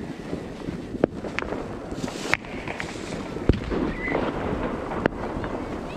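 Wind buffeting the microphone, with a handful of sharp pops or cracks scattered through it, the loudest about three and a half seconds in.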